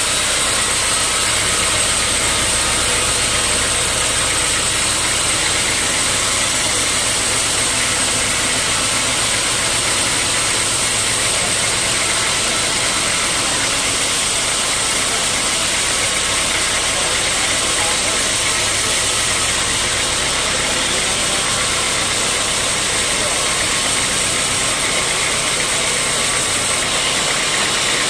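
Sawmill machinery running steadily: a constant high whine over a low drone and a dense wash of noise.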